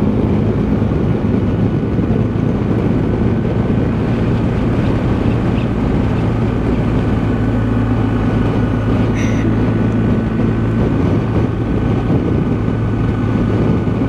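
BMW R1250 boxer-twin motorcycle engine running at a steady cruising speed, a constant low drone under the rush of wind and road noise.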